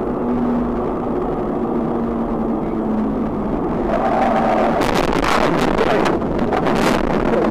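Steady road and engine noise inside a moving car at highway speed. About four seconds in the noise swells as the car veers off the road, then a series of loud crashing impacts follows over the next two seconds as it strikes the guardrail and goes over.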